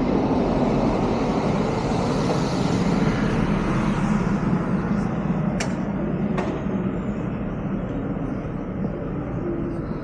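Road traffic noise, a vehicle passing on the street, swelling a little a couple of seconds in, with two sharp clicks about halfway through.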